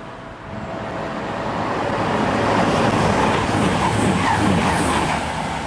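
Passenger train passing through close by at speed: a rush of wheel and air noise that builds over the first two seconds, holds loud, and starts to fall away near the end.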